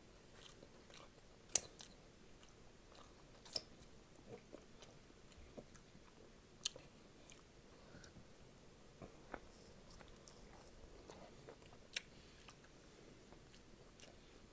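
Quiet chewing and biting of a sausage dog in a soft bun, with a few sharp mouth clicks scattered through, the loudest about a second and a half in and near the end.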